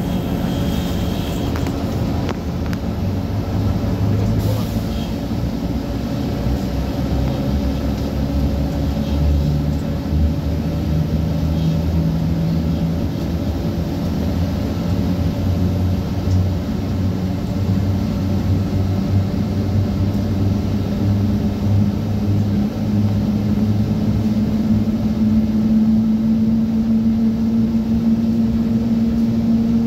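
Inside a YuMZ-T2 trolleybus: a steady hum of the electric drive over a low rumble, one tone growing louder and rising slightly in pitch near the end.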